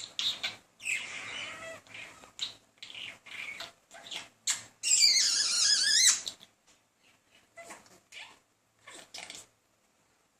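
Budgerigar chattering in quick short bursts, breaking into a loud, wavering warble about halfway through, then thinning out to a few scattered chirps.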